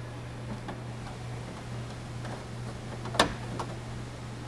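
Light plastic clicks and taps as a plastic vent screen is handled and pressed into the vent openings of a portable toilet's plastic side panel, with one sharper click about three seconds in. A steady low hum runs underneath.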